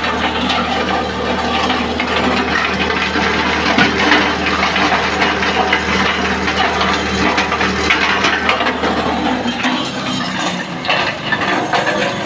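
Maize sheller driven by a 7.5 HP petrol engine, running: a steady engine hum under a dense rattle of cobs and kernels being threshed. The low hum weakens about ten seconds in while the rattling goes on.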